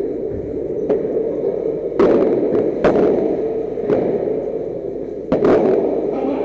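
Padel rally: the ball is struck with solid padel rackets and bounces on the court, giving sharp pops roughly once a second, two in quick succession near the end, over steady background noise in the hall.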